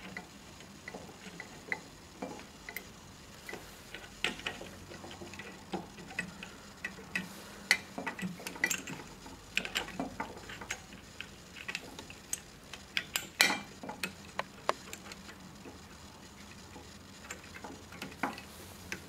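Small screws being turned by hand into the metal flange that clamps a heater into a glass water-still boiler: irregular light clicks and scrapes, with a few sharper clicks.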